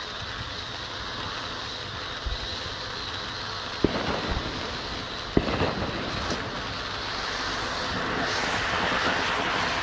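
RGS Oztastic firework fountain spraying sparks with a steady hiss. There are two sharp pops about four and five and a half seconds in, and near the end the spray grows louder and crackles.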